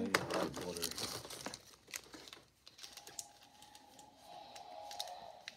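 Foil Pokémon card booster pack crinkling and crackling as it is handled, with dense sharp crackles in the first two seconds and sparser ones after. A faint steady hum comes in from about halfway.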